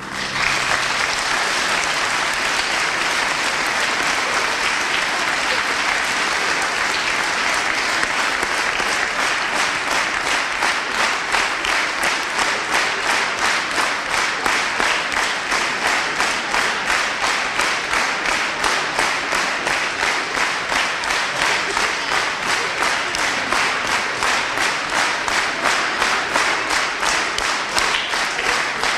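A large audience applauding in a hall, bursting in as the last sung note ends; after several seconds the clapping falls into a steady rhythm of about three claps a second.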